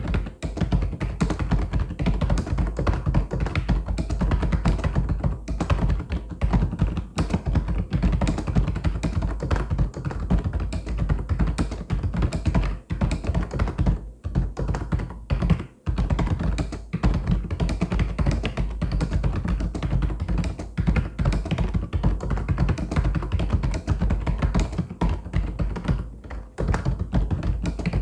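Fast, continuous typing on a mechanical keyboard: a dense stream of key clacks with a few brief pauses in the middle.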